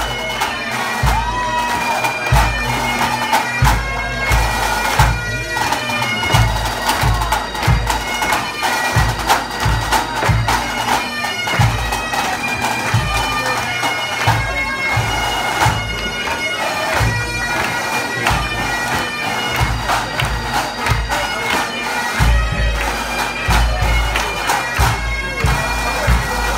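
Pipe band playing: Great Highland bagpipes with their steady drones and chanter melody, over the regular beat of a bass drum and the band's drums.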